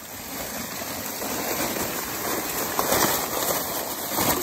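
Stiff plastic wrapping crinkling and rustling as it is pulled back off a bundle of steel roofing panels, with a couple of sharper crackles in the second half.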